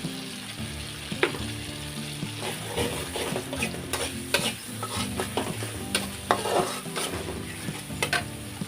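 Food frying and sizzling in hot oil while it is stirred in the pan, with several sharp clinks of the utensil against the pan.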